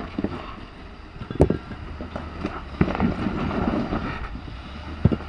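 Jeep Rubicon idling, with wind buffeting the microphone. Two sharp knocks cut through, one about a second and a half in and one near the end.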